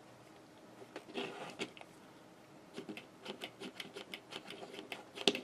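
Light clicks and taps of small plastic craft items being handled on a table: a hot glue gun and its stand. The clicks grow busier past the middle, and the loudest, sharpest click comes near the end.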